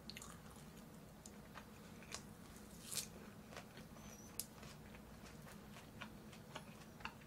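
Faint, irregular soft clicks, about two a second, over a low steady hum.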